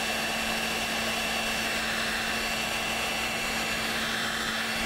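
Heat gun running steadily, its fan blowing with a constant high whine and a low hum, while it shrinks black heat-shrink tubing over a microphone cable's new 3.5 mm jack.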